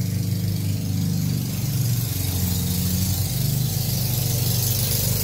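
An engine idling steadily: an even low hum with a constant hiss over it.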